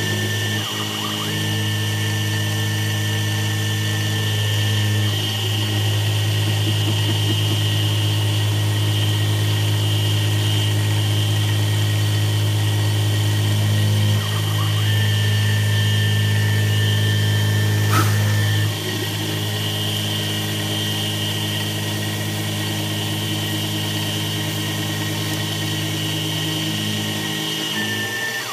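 X2 CNC mini mill with a quarter-inch end mill surfacing a graphite-impregnated nylon block: the spindle motor hums and the drives whine steadily, and the tone shifts a few times as the cutter changes passes. There is a sharp click near the end of the loudest stretch.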